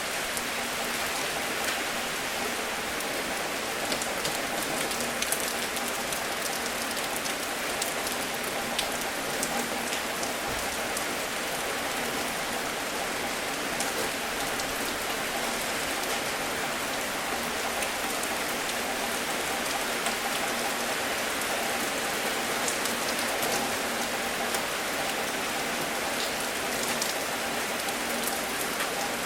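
Steady, even rain, with scattered sharp ticks of single drops landing.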